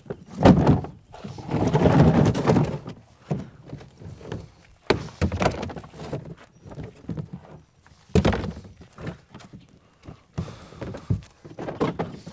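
Empty black plastic ballasted solar ground-mount trays knocking and scraping as they are lifted and set down on dirt and gravel: a run of separate hollow knocks, with a longer scrape about two seconds in.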